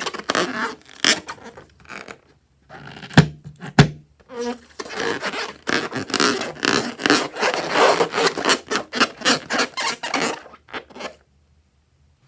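Slime being stirred and scraped in a mixing bowl: quick, repeated rubbing strokes that grow busiest from about four seconds in. Two sharp clicks come just before the stirring picks up.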